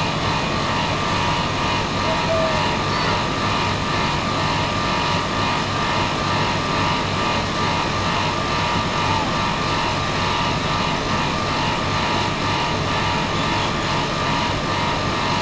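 Steady machine drone with several constant tones over a low rumble, like a running engine or motor, unchanging throughout.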